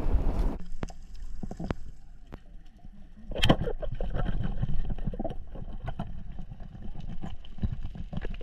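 Underwater sound from a spearfishing diver's camera: a low water rumble with scattered clicks and crackle. One sharp, loud hit about three and a half seconds in, where a pole spear is shot into a hogfish on the sand. Wind buffets the microphone for the first half second, before the cut under water.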